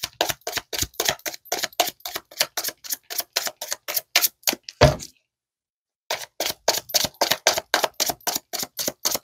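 A deck of tarot cards being shuffled by hand: a steady run of short card slaps, about five a second. About five seconds in comes one heavier knock and a second's pause, then the shuffling starts again.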